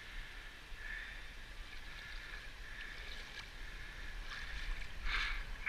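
Shallow seawater sloshing and splashing around a wader's legs and a beach sand scoop as a coin is dug out of the surf, with a brief louder splash near the end. A faint steady high tone sits under it.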